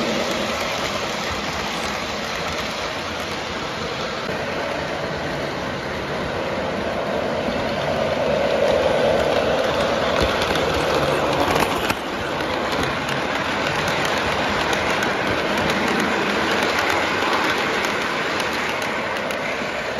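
O-gauge three-rail model trains running past close by: a continuous rumble and clatter of wheels and motors on the track, swelling and fading as the cars go by.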